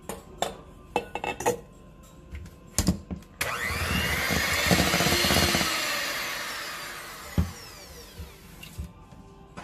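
Electric hand mixer switched on about a third of the way in, its beaters running in a bowl of flour and creamed cake batter, then dying away gradually. Before that, a few clinks and knocks of metal against the stainless steel mixing bowl.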